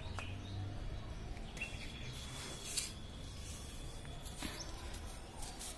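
Quiet background noise with a few faint high chirps, a thin whistle-like tone lasting about three seconds, and light handling clicks.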